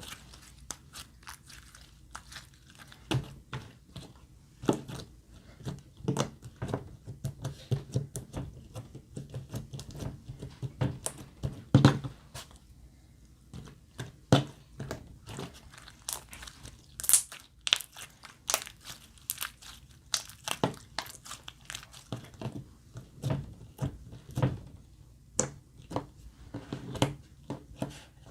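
Glossy slime squished and stretched by hand, giving irregular sticky clicks and pops with soft squelches in between.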